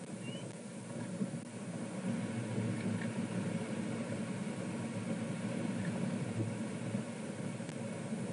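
Steady low rumble of wind buffeting an outdoor nest-camera microphone, a little louder from about two seconds in.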